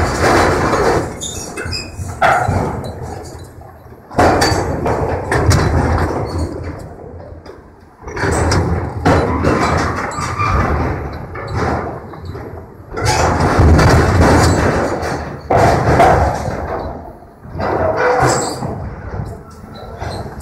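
An excavator's hydraulic demolition grapple crushing and tearing metal building structure and tanks: about eight sudden crashes of metal, each fading over a second or two.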